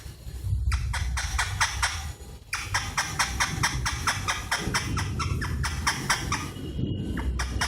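Fast, even rhythmic ticking, about six ticks a second, like a shaker or hi-hat beat in music. It breaks off briefly three times.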